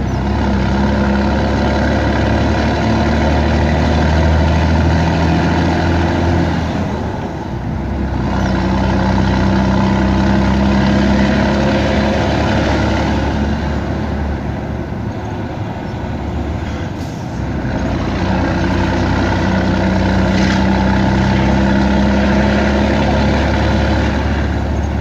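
Scania 113 truck's six-cylinder diesel engine running under load, heard from inside the cab, with a steady deep drone. The drone dips briefly twice, about 7 and 17 seconds in, then picks up again, as at gear changes.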